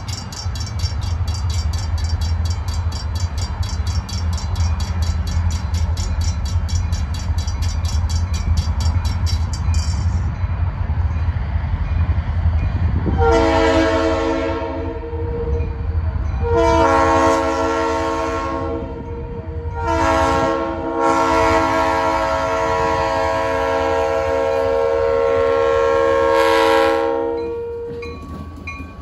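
A grade-crossing bell rings rapidly over the low rumble of approaching diesel locomotives, and stops about ten seconds in. Then the lead SD40-2 locomotive's multi-chime air horn sounds the grade-crossing signal, long, long, short, long, the last blast held about seven seconds as the locomotives reach the crossing.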